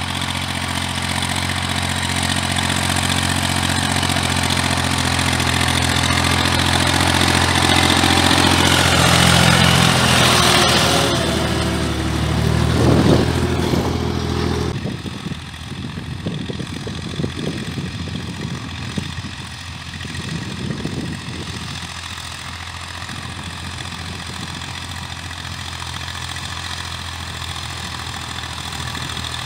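Farm tractor engine running steadily as it pulls a field cultivator, growing louder as it draws near and peaking about thirteen seconds in. After a sudden change a little later, the engine is fainter, with uneven rumbling noise over it.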